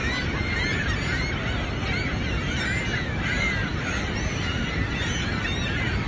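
A flock of gulls calling over one another, many short rising-and-falling cries overlapping without pause, over a steady rushing noise.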